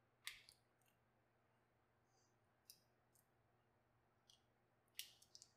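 Faint, sharp clicks and cracks of cooked lobster leg shell being pulled open by hand: a click about a third of a second in, a few softer ones in the middle, and a quick cluster of clicks near the end.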